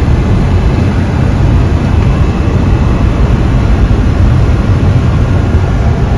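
Car engine running hard, with a steady loud rumble, as the car spins its tyres on snow and fails to climb the hill.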